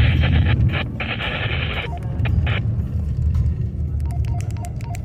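Radio static hiss that cuts off abruptly about two and a half seconds in, over a steady low rumble. Near the end, faint short beeps repeat at two alternating pitches.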